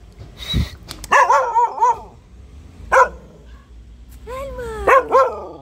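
Dog barking and yelping in short bouts: a few quick barks about a second in, a single sharp bark around three seconds, and another few near the end. A soft thud comes shortly before the first barks.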